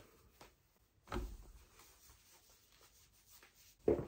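Soft rustling and scraping of clothing as a long skirt is held up and shifted, with a soft low thump about a second in and a brief, louder sound near the end.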